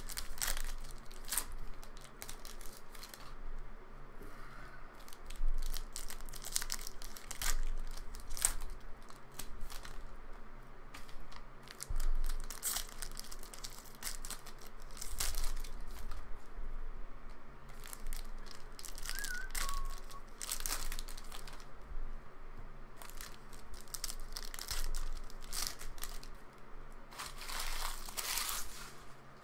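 Foil trading-card pack wrappers crinkling and tearing as Panini Mosaic football hobby packs are ripped open by hand, in irregular crackles with a longer burst of crinkling near the end.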